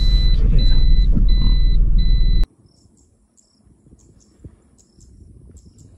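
Road noise of a compact car heard from inside while driving, with a long electronic beep repeating about every two-thirds of a second. About two and a half seconds in it cuts off abruptly to quiet open air with insects chirping in short high pulses.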